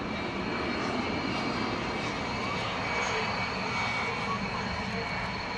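Aermacchi MB-339 jet trainer's Viper turbojet running at taxi power: a steady high whine over an even engine rush.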